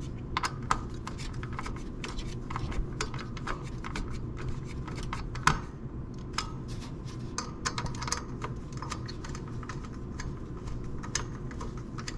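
Phillips screwdriver tightening a CPU cooler's mounting screws into the motherboard: a run of quick, irregular small clicks and ticks.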